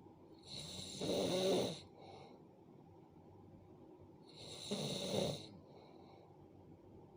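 A person snoring in sleep: two long snores, about three and a half seconds apart.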